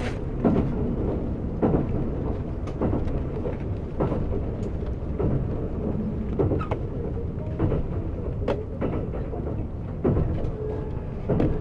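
Kintetsu 50000 series Shimakaze limited express running at speed, heard from inside the passenger cabin: a steady low rumble of wheels on rail, broken by irregular knocks and clicks every second or so.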